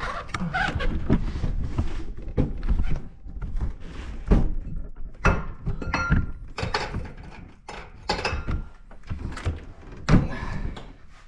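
Irregular knocks, thunks and metal clanks of hand tools and engine parts being worked loose during an engine teardown, a few with a short metallic ring.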